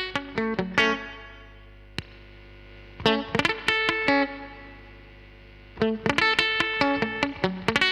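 Electric guitar played through a DemonFx CK Compressor pedal and a Nux Amp Academy preamp. Quick picked runs of notes, a chord left to ring out about a second in, another short run around three seconds in that rings down, then fast picking again near the end.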